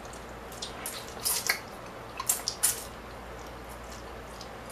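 Close-up wet eating sounds: lo mein noodles being slurped and chewed, a string of short wet smacks and slurps, most of them in the first three seconds.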